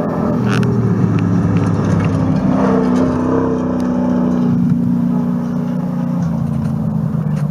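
Rally truck's engine running hard at high revs as it speeds past on a gravel road, its pitch stepping down slightly about six seconds in, with a few sharp clicks.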